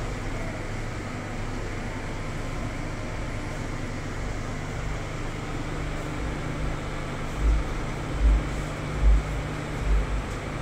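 Steady low mechanical hum with a hiss over it, and several low thuds in the second half.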